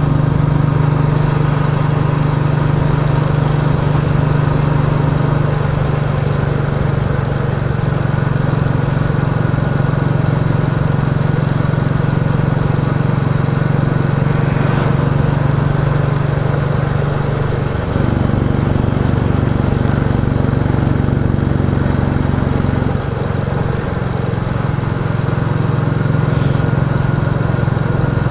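Royal Enfield Classic 350 single-cylinder engine running steadily under way through a Hitchcock's de-cat exhaust pipe. The engine note changes abruptly twice in the last third.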